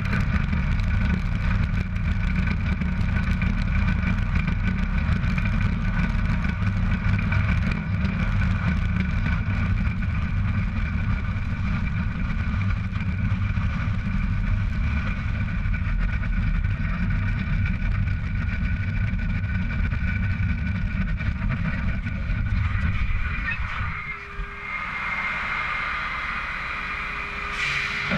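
Tractor-trailer rolling on the road, heard from low beside the trailer's wheels: a heavy, steady tyre-and-road rumble with wind. Near the end the rumble falls away as the rig slows, leaving a steady whine.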